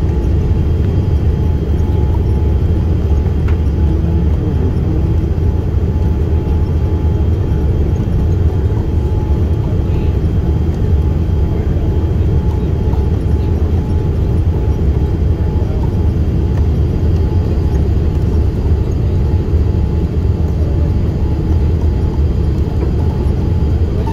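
Steady low rumble inside a Boeing 787 cabin on final approach, from engine and airflow noise heard at a window seat beside the engine, with a faint steady whine above it.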